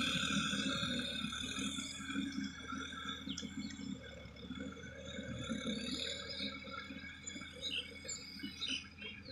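A Sonalika DI 50 tractor's diesel engine running at a distance, getting fainter as the tractor drives away. A steady high-pitched buzz runs underneath.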